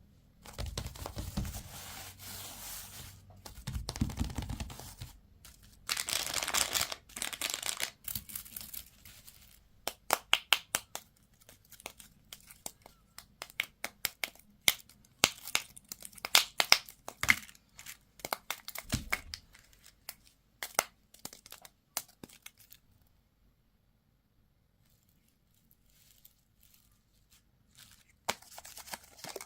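Candy wrappers being crinkled and torn open by hand, with rustling stretches and many sharp crackles. There is a pause of a few seconds before the crinkling resumes near the end.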